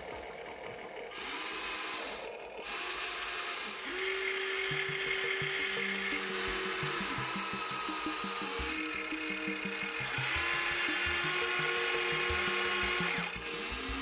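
Electric motors and gears of a Huina remote-control toy excavator whining as the boom and bucket move through sand. The whine comes in spells of a few seconds, starting, stopping and shifting in pitch as each function is driven.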